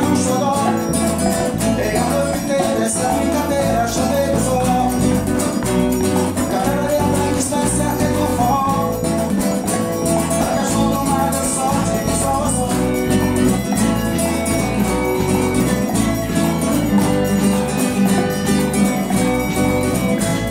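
Forró song played by a band: a man singing over a nylon-string acoustic guitar, bass, drums and hand percussion, with an electric guitar coming to the fore near the end.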